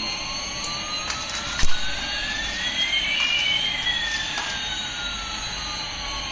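Electronic jet-engine sound effect from a toy airliner's speaker: a steady hiss with one tone slowly rising while another slowly falls, the two crossing about halfway through. There is a single sharp click about one and a half seconds in.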